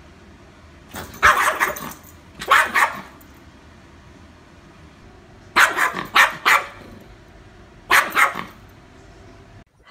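Small dog barking in short, sharp bouts at a hand held up before it: a pair of barks about a second in, another near two and a half seconds, a quick run of three around six seconds, and a last one near eight seconds.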